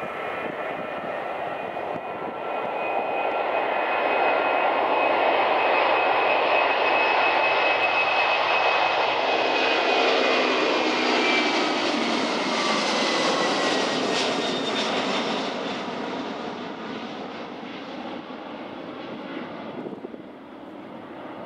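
Airbus A300-600F twin-turbofan freighter at takeoff thrust, rolling, lifting off and climbing past: a jet roar that builds over the first few seconds and peaks, with a whine that drops in pitch as the aircraft passes, then fades as it climbs away.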